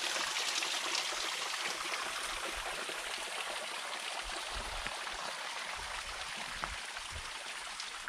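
A small waterfall trickling and splashing down a rock face into a shallow pool: a steady hiss of falling water that grows slightly fainter, with a few soft low thuds partway through.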